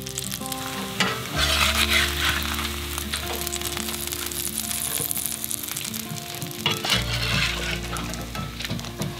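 Bacon frying in a cast iron skillet, a steady sizzle that swells louder about a second in and again near seven seconds. Soft background music plays under it.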